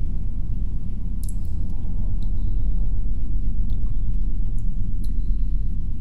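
Steady, low, muffled wind rumble, as if heard through thick walls, with a few faint, sparse high clicks.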